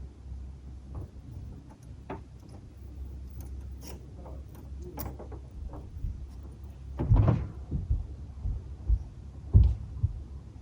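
Lagoon-side outdoor ambience: a steady low rumble with scattered knocks and thuds, the loudest a cluster of heavy thumps about seven seconds in and another near the end.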